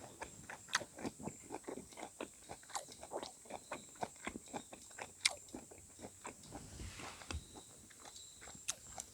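Close-up chewing: a person eating grilled pork topped with kimchi, with soft wet clicks and crunches several times a second and one sharper click about five seconds in.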